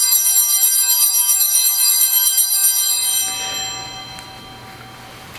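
Altar bells rung at the elevation of the consecrated host, a bright, high, shimmering ring. It stops a little over three seconds in and dies away by about four seconds.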